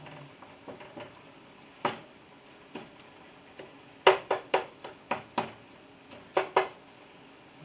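Sharp metal clinks of a utensil against a frying pan while food fries on the stove. There is one clink about two seconds in, a quick run of about seven around the middle, and two more near the end.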